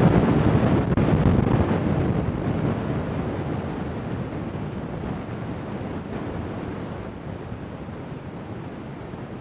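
Wind buffeting the phone's microphone: a low, uneven rush that is loudest at first and fades steadily.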